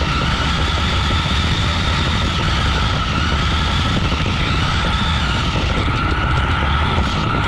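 Toy RC car driving with a camera mounted on it: a steady electric-motor whine over a loud, constant rumble of the wheels and chassis shaking the camera.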